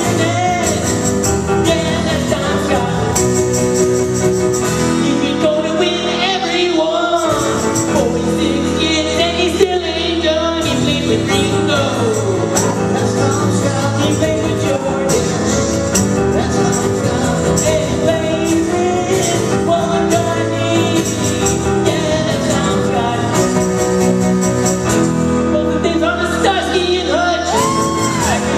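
A man singing a song live, accompanied by a strummed acoustic guitar and a banjo.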